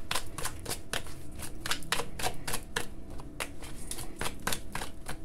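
A deck of oracle cards being shuffled by hand: a rapid, uneven run of light card flicks and snaps.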